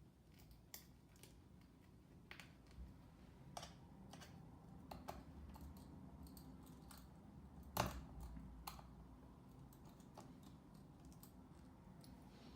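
Faint, scattered small clicks and taps, with one sharper click about eight seconds in: a precision screwdriver and its small screws working on the MacBook Pro's aluminium bottom case as the cover is screwed back on.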